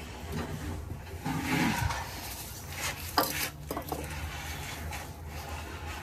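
Hands scraping and rubbing at the base of a toilet, then a sharp knock a little past three seconds in and a couple of light clinks as a spray can and metal tools are handled on the tile floor, over a steady low hum.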